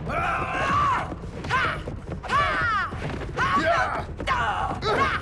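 A woman's high, warbling battle cry, repeated in several yells whose pitch swoops up and down, as a hand-to-hand fight breaks out, with a few blows landing between the yells.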